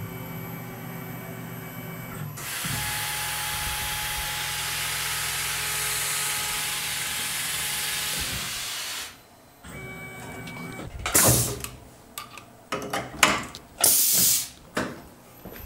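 Tormach PCNC 1100 CNC mill's spindle humming steadily, then a mist coolant spray hissing loudly for about six seconds while a spotting drill spots a steel block. Near the end, the hiss stops, followed by several short loud bursts of hiss and knocks as the mill changes from the spot drill to a twist drill.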